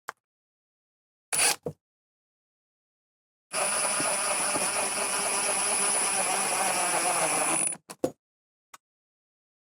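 A power tool running steadily for about four seconds, with a constant high whine, starting and stopping abruptly; a few short knocks and clicks around it.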